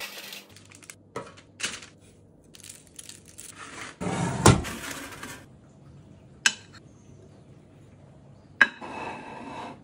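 Kitchen handling sounds: baking paper rustling as it is smoothed onto a tray, then a sharp metal clank from the baking tray in the oven about halfway, the loudest sound. Near the end comes a clink of cauliflower florets set on a ceramic plate.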